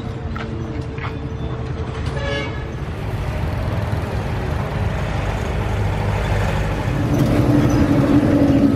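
Engine and road traffic noise. A steady low engine rumble grows louder about seven seconds in as a motorcycle pulling a tuk-tuk trailer comes close.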